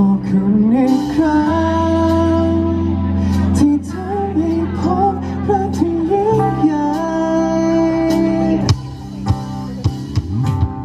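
Male singer singing a slow Thai pop ballad live with a band of guitar and drums, the voice holding long notes. Near the end the singing stops and the accompaniment carries on with a few drum hits.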